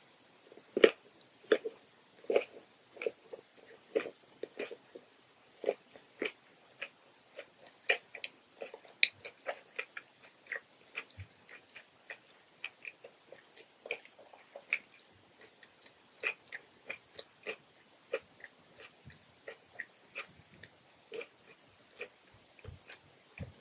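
Close-miked chewing of a cucumber roll: an irregular run of sharp, crisp crunches, about two a second.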